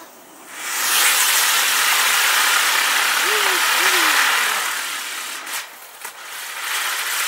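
Penny farthing firework wheel igniting and spraying sparks with a loud, steady hiss that fades about five seconds in. Two sharp cracks follow, then the hiss builds again near the end as the next stage lights.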